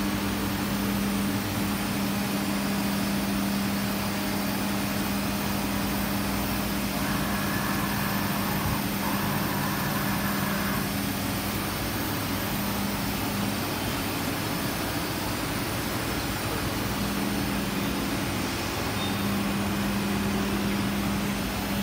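Steady hum of running shop machinery, with a low droning tone that drops out for a few seconds about two-thirds of the way through, then returns.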